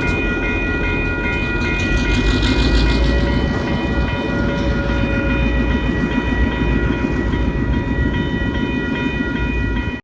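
Diesel-led train with an EMD GP7 locomotive rolling through a grade crossing: a steady heavy rumble of engine and wheels on rail, loudest about two to three seconds in, while the crossing's warning bell keeps ringing. The sound cuts off abruptly at the end.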